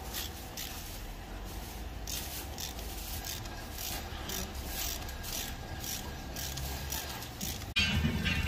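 Irregular rubbing and scraping of metal suspension parts as a coil-spring strut and lift spacer are handled and fitted together, over a low steady rumble. Near the end the sound cuts abruptly to a louder, different noise.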